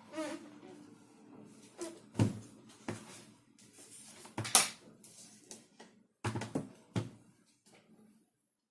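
Sharp clicks and knocks of hard parts being handled and fitted together. The loudest come about two seconds in and about four and a half seconds in, with a quick run of three near the end.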